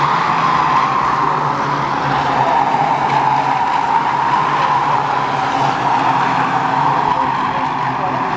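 A pack of Ministox stock cars racing around an oval, their small engines running hard together with tyres skidding and scrubbing through the bends.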